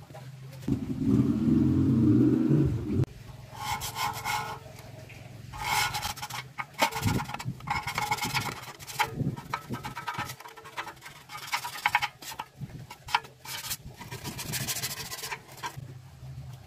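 Hand scraping strokes in bursts of a few seconds, each with a fast rasping texture, like a hand tool worked over a part. About a second in, a louder low-pitched noise lasts roughly two seconds.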